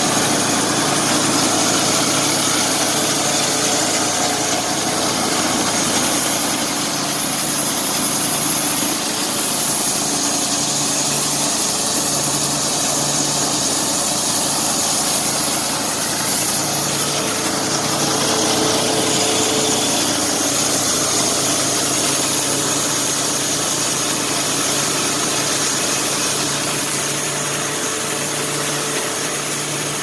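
Air-cooled two-cylinder Wisconsin gas engine running steadily, driving the blade of a homemade band saw sawmill.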